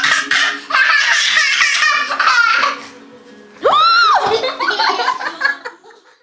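Toddler laughing loudly in repeated bursts, with one high rising-and-falling squeal about four seconds in.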